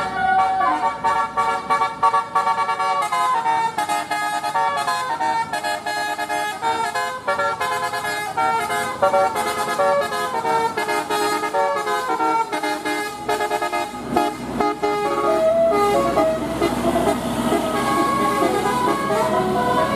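Bus telolet horn, a multi-trumpet musical air horn, playing a fast tune of stepping notes that climb and fall in runs. Near the end the tune gives way to gliding, siren-like horn tones.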